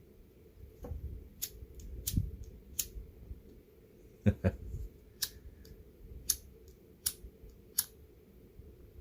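A run of about nine light, sharp clicks, roughly one every half-second to second, with a double click near the middle being the loudest. These are small hard metal and glass parts of a candle lantern being handled and set together.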